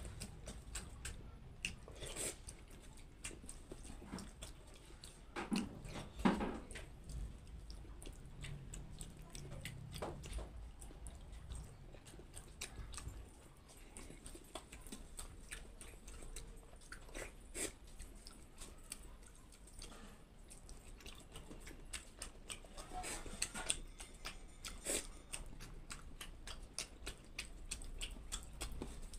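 Close-up eating sounds: fingers mixing and scooping soft, wet khichdi on a steel plate and a person chewing, an uneven run of small clicks and squelches, loudest about six seconds in.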